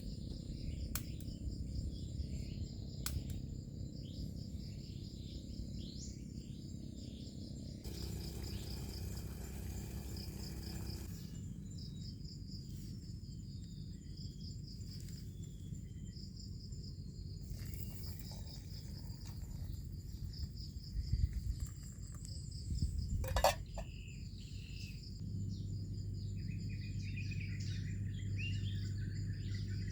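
Insects trilling steadily in a high, pulsing chorus over a low, steady rumble. A few sharp knocks come about two-thirds of the way in, and birds chirp near the end.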